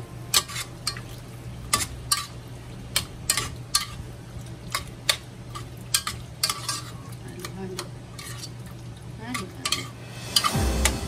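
A metal spoon stirring chunky beef stew in a stainless steel pot, clinking and scraping against the pot at an irregular pace. A louder rush of noise comes in near the end.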